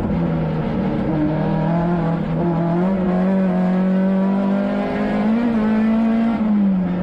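Škoda 130 LR rally car's rear-mounted four-cylinder engine running hard at high revs, heard from inside the cabin. Its pitch holds steady, steps up about a third of the way in and dips again near the end, following the throttle as the car accelerates.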